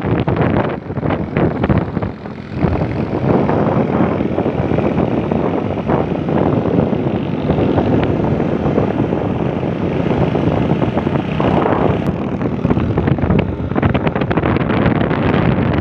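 Motorcycle running along the road, its engine mixed with steady wind rush on the microphone.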